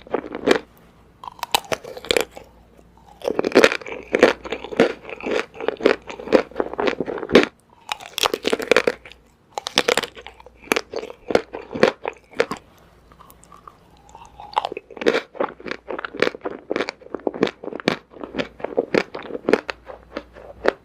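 Close-up biting and crunchy chewing of chocolate-coated candy ice cream bars: runs of sharp crunches, several a second, broken by brief pauses about a second, about seven and a half seconds, and about thirteen seconds in.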